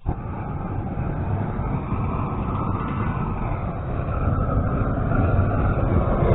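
A vehicle engine running steadily with a rumbling noise, growing a little louder toward the end.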